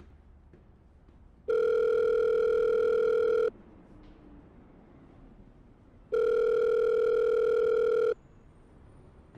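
Telephone ringback tone: the ringing a caller hears while a call goes through, sounding twice, each ring a steady two-second tone with a pause of about two and a half seconds between.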